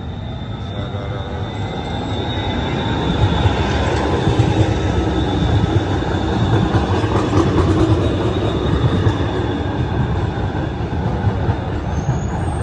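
Electric light-rail train running close by, its rumble growing over the first few seconds and then holding steady, with a thin high whine throughout.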